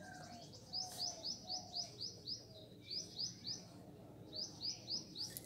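A bird chirping in three quick runs of short, high notes, each note falling in pitch, about four a second.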